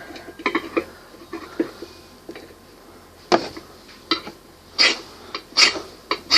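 Striker scraped hard down a ferro rod about five times in quick succession, roughly one stroke a second, throwing sparks at a waxed tinder stick; a few light clicks come before the strikes.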